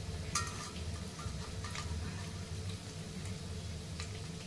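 Piyaju fritters deep-frying in hot oil, a steady low sizzle broken by a few light ticks and metallic clinks. The loudest is a short ringing clink about a third of a second in.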